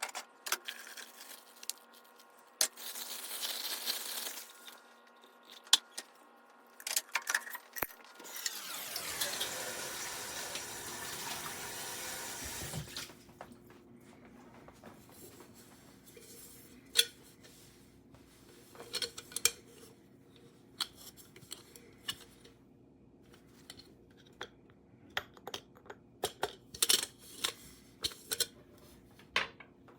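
Kitchen handling sounds: metal utensils and dishes clinking and tapping, with a few seconds of liquid being poured or running partway through. A steady low hum comes on partway through and keeps going.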